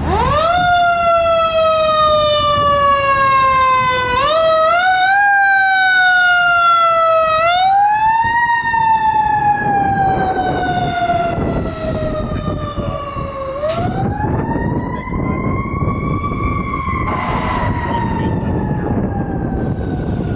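Fire engine's Federal Q2B mechanical siren. It winds up quickly, then slowly coasts down in pitch, and is spun back up several times. The truck's engine rumbles beneath.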